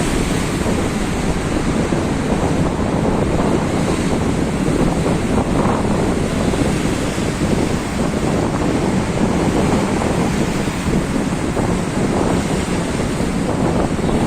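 Sea waves washing against the shore with strong wind buffeting the microphone; a steady, dense rush with no distinct breaks.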